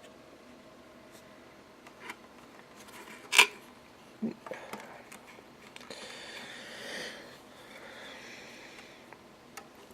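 Handling noise at a workbench: a few sharp clicks, the loudest about three and a half seconds in, then a few seconds of rustling.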